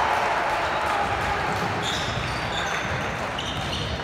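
A basketball bouncing on a gym court during play, with voices in the background.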